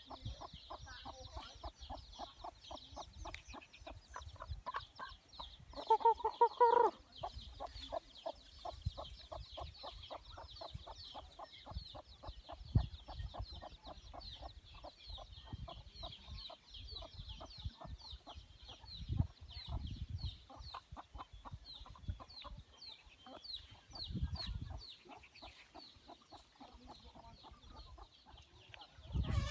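A flock of chickens clucking busily while being fed, with one louder drawn-out call about six seconds in.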